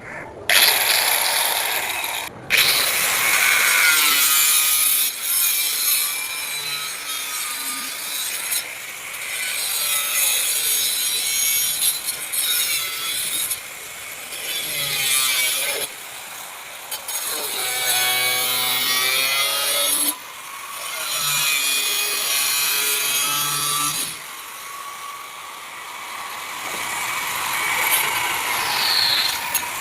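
Sawing, in long spells broken by several short pauses.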